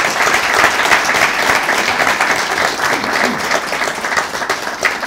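Audience applauding, many hands clapping together, the applause gradually thinning out and dying down toward the end.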